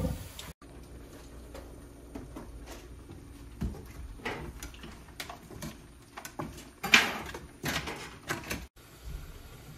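Metal spoon scraping and clinking against a frying pan while seafood is stirred, in scattered strokes with the loudest about seven seconds in, over a faint low hum.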